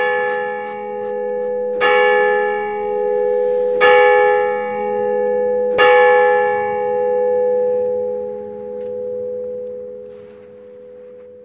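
A single church bell struck four times, about two seconds apart, each stroke ringing on into the next; after the last stroke the ringing slowly dies away.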